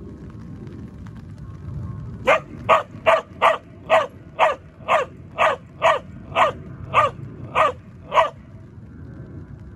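A border collie barking on a silent hand cue: a steady series of thirteen sharp barks, about two a second, starting a couple of seconds in and stopping shortly before the end.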